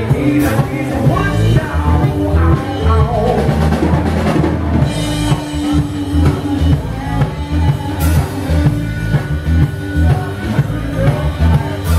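Live blues band playing with electric bass, drum kit and electric guitar on a steady beat, with cymbal crashes about half a second in and again near eight seconds.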